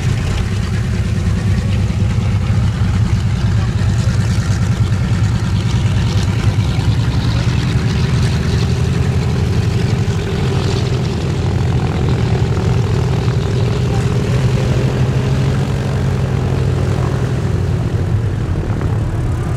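Boeing B-29 Superfortress's four Wright R-3350 radial engines running at low taxi power: a loud, steady, deep drone with a fast, rough pulse.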